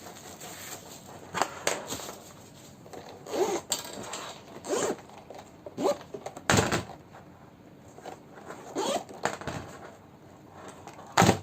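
Packaging being handled during an unboxing: a string of short, irregular scraping and zip-like rustles, with the strongest about halfway through and near the end.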